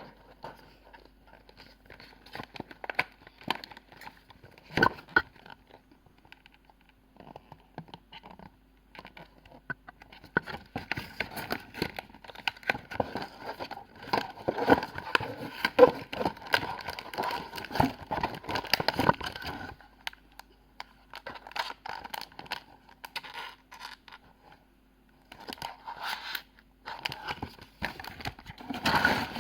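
Perfume packaging being handled and unwrapped by hand: a run of dense, irregular rustles and clicks. It is busiest through the middle, thins out, pauses briefly, then picks up again near the end.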